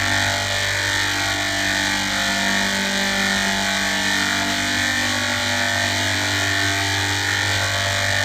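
Steady, buzzing electronic drone made of many held tones stacked together, from a 'G Major' edited audio effect; it holds one unchanging pitch throughout.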